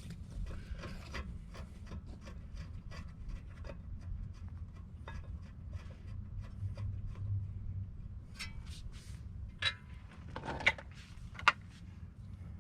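Faint rubbing and scraping of hands on metal as a 15 mm brake bolt is threaded in by hand, with a few sharper metallic clicks near the end.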